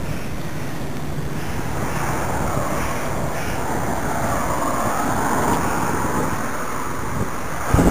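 Wind rushing over the microphone of a moving bicycle, with tyres rolling on tarmac underneath, and one short thump near the end.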